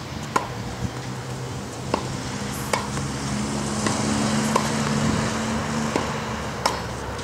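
Tennis balls struck with racket strings in a quick net volley exchange: about eight sharp pops at uneven intervals of half a second to a second. Under them runs a low steady hum that swells in the middle.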